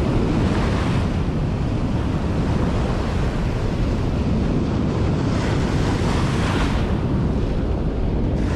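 Ocean surf breaking and washing up the beach, with wind buffeting the microphone in a low rumble. The hiss of the wash swells about five to seven seconds in.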